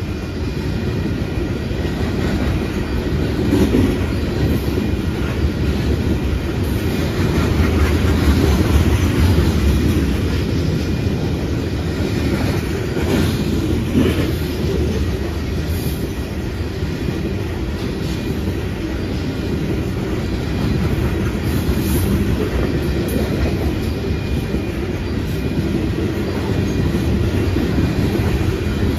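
Loaded coal gondola cars of a freight train rolling past at steady speed: a continuous low rumble of steel wheels on rail, with occasional clacks.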